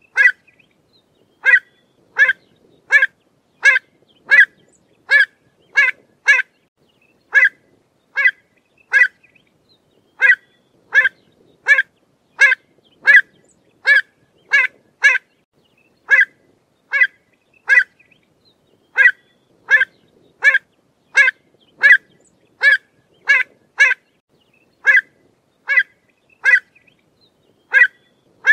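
Pied avocet calling: a long series of short, sharp, clear call notes repeated about one to two a second, with a few brief pauses.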